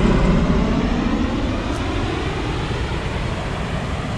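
V-22 Osprey tiltrotor flying past low, its rotor and engine noise falling in pitch and slowly fading as it moves away.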